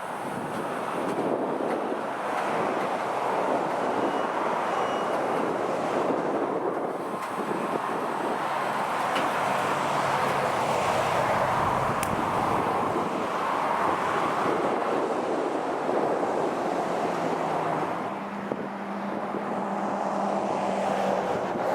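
Freight train moving: a steady rolling rumble and rush, with a low diesel engine hum that grows a little stronger near the end.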